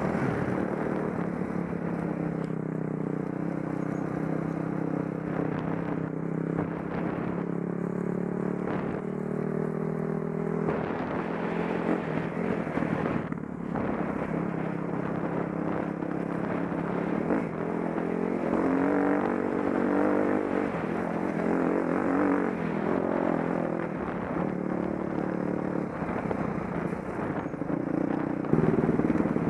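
Enduro dirt bike engine running under the rider at a helmet camera, its pitch rising and falling with the throttle while riding a dirt track.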